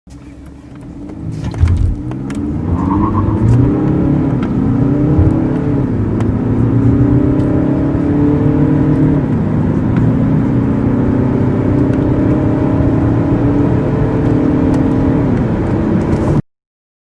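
Turbodiesel (TDI) car engine accelerating hard from a standstill. Its pitch climbs and drops back at each of several gear changes, with a thump about a second and a half in. The sound cuts off suddenly near the end.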